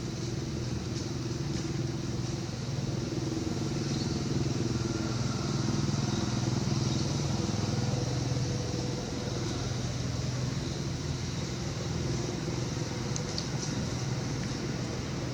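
An engine running steadily, a low pitched hum that grows a little louder in the middle and eases off again.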